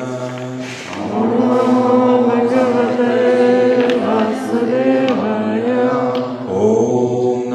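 Devotional mantra chanting by voices, sung in long held phrases over a steady low drone.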